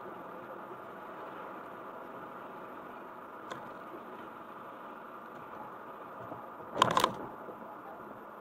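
Steady road and engine noise of a car being driven, with a faint click about three and a half seconds in and a short, loud clatter of clicks about seven seconds in.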